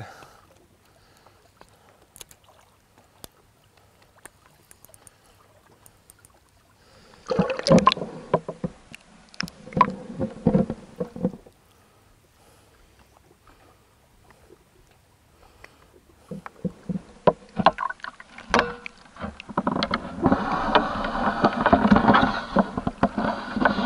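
A hooked tench splashing and thrashing at the surface of shallow water in irregular bursts, in two spells: one about seven seconds in, and a longer one in the second half as it is scooped into a landing net.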